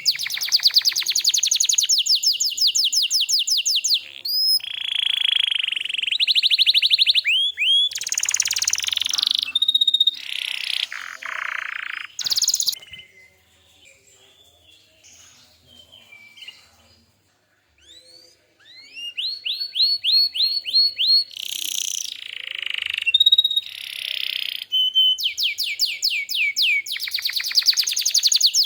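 Domestic canary singing: fast trills of rapidly repeated high notes and rolls, changing from phrase to phrase, with a pause of several seconds midway before the song starts again.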